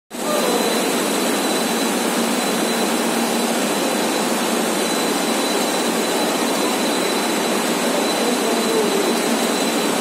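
Rubber profile extrusion and vulcanization line running: a loud, steady hiss of machinery with a thin, constant high whine.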